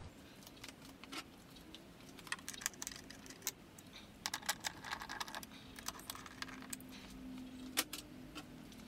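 Light, irregular clicks and taps of small metal parts and fasteners being handled and fitted while mounting a bracket and brake line holder, with a faint steady hum underneath.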